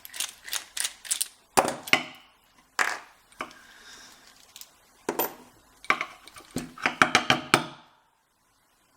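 Sharp metal clicks and clacks as an American 5200 padlock is handled and worked on with a screwdriver to take it apart, coming in irregular clusters with a quick run of clicks near the end. The sound cuts off abruptly about eight seconds in.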